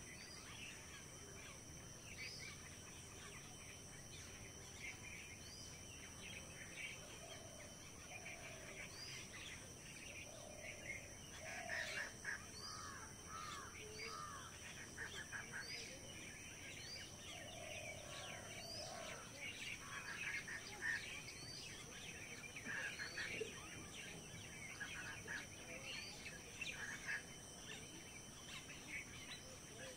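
Birds chirping and calling at many points, with a short high note repeating every second or two, over a steady high-pitched hum.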